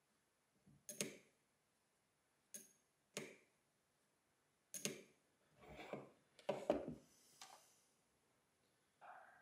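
Mechanical digit counter of a Rotatape measuring wheel clicking as it is worked by hand, in pairs of sharp clicks about every two seconds, the counter advancing now that it has been repaired. About six seconds in comes a louder clatter and a knock.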